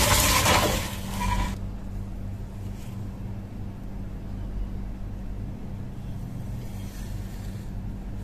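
Steel shovel scoops sliding across a wooden workbench, a rough scraping for about the first second and a half, followed by a steady low hum.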